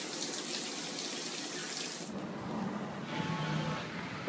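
Tap water running hard into a bathtub for about two seconds, then cutting out to a fainter background with a low hum.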